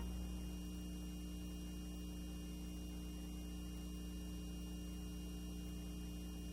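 Steady electrical mains hum on the soundtrack: a low, unchanging buzz made of a few steady tones.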